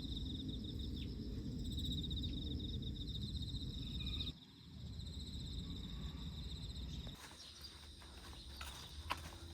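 Insects trilling in a high, rapidly pulsing buzz over a steady low rumble; the trill stops about four seconds in. Light clicking taps start near the end.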